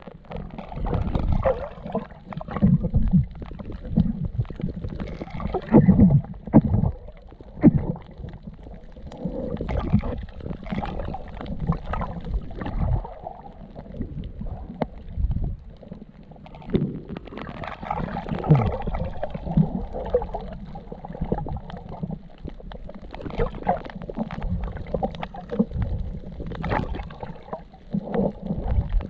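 Muffled, irregular swishing and gurgling of water heard through a camera held underwater, surging in uneven waves as the swimmer moves.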